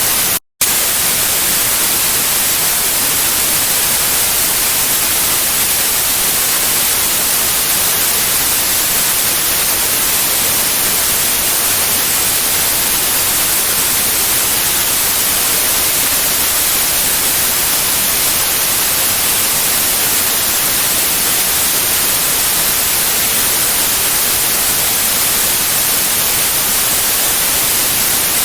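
Steady white noise, an even hiss strongest in the highs, broken once by a brief drop to silence about half a second in.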